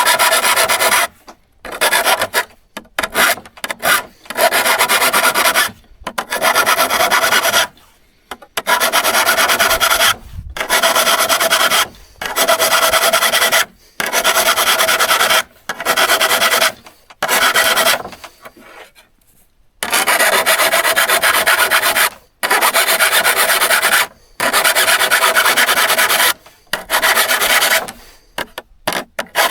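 A steel hand-saw blade being worked by hand, abraded or filed in repeated back-and-forth rasping strokes, each lasting one to two seconds, with a faint ringing tone from the metal. There is a longer pause about eighteen seconds in.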